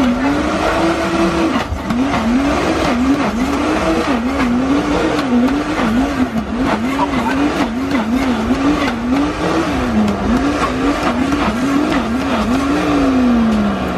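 Electric blender motor running while it blends a fruit shake, its pitch wavering up and down a few times a second as the load changes, then winding down near the end as it is switched off.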